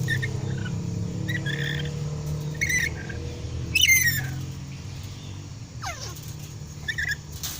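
Pet lory (nuri parrot) giving a series of short high calls and chirps, the loudest a falling call about four seconds in, over a steady low engine hum that fades after about four and a half seconds.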